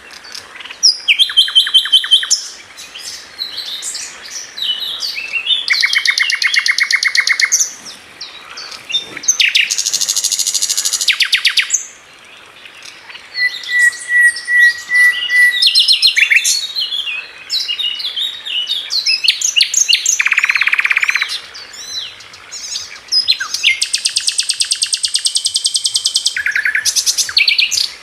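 Several birds singing and chirping, with quick high chirps, a few fast rattling trills lasting a second or more each, and a short wavering whistle about halfway through.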